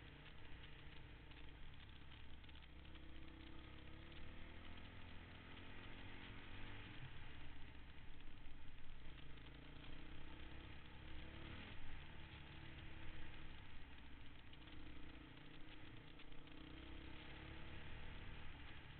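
Honda dirt bike engine running under way along a trail, its pitch climbing and falling back several times as the throttle is worked.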